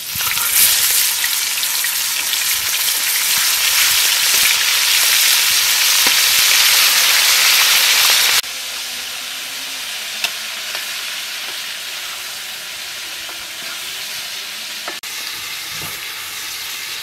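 Fish steaks frying in hot oil in a wok: a loud, steady sizzle that starts as the fish goes in. About eight seconds in it drops suddenly to a quieter, even sizzle.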